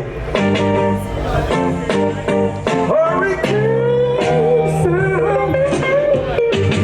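Music played loud through a sound system: a sung vocal gliding over a bass line, beat and guitar.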